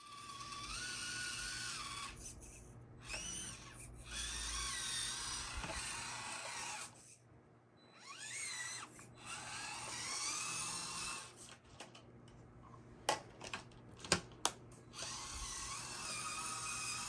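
Small-scale RC crawler's electric motor and geartrain whining, rising and falling in pitch with the throttle across several short runs with pauses between them. A few sharp clicks come about two-thirds of the way through.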